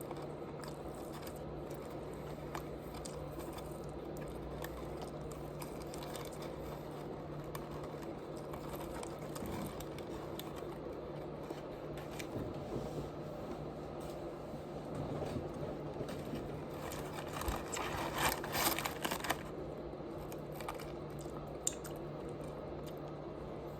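Close-miked eating: quiet chewing and squishy mouth sounds, with a short run of crunchy clicks about eighteen seconds in, over a steady low electrical hum.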